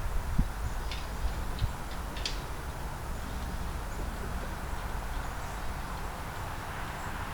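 Chickens foraging: a few short, sharp ticks in the first couple of seconds over a steady low rumble.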